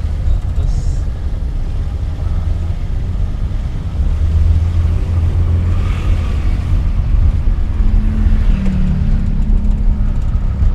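Daihatsu Hijet 1000's small three-cylinder engine running while under way, heard from inside the cab as a steady low drone mixed with road noise. It gets louder about four seconds in.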